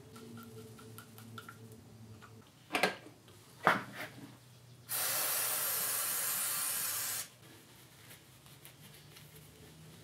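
Aerosol carburetor cleaner sprayed through a thin extension straw in one steady hiss of a bit over two seconds, about halfway through. It is preceded by two sharp knocks a second apart as the metal carburetor parts are handled.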